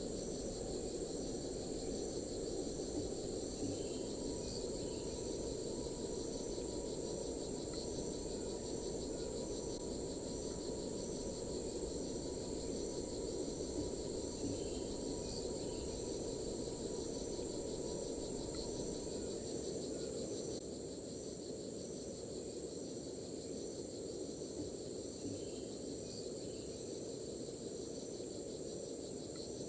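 Steady chorus of forest insects: several high, even, pulsing trills, with a steady low hiss beneath.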